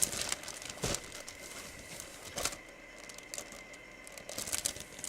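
Plastic packaging crinkling and rustling in bursts as it is handled, with a light knock about a second in.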